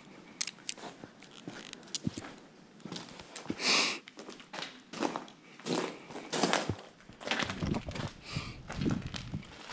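Footsteps crunching and scraping over scattered ceiling tiles and rubble, with small clicks and knocks of loose debris. A loud breathy rush of noise comes a little under four seconds in.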